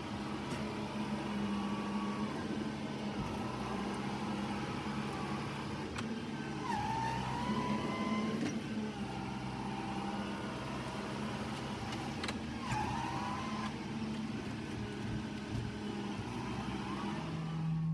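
Stihl gas saw's small two-stroke engine running steadily at high speed, with a couple of brief rising and falling pitch shifts.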